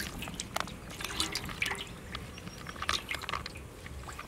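Cooking oil poured in a thin stream into a hot aluminium pot, splashing and spreading over the metal with irregular small crackles.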